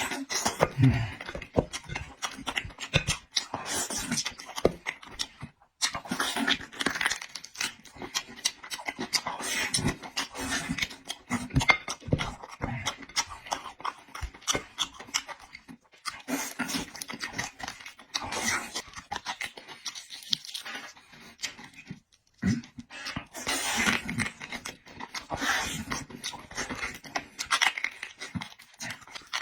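A person eating close to the microphone: wet chewing and lip smacks in uneven bursts, with a couple of short pauses.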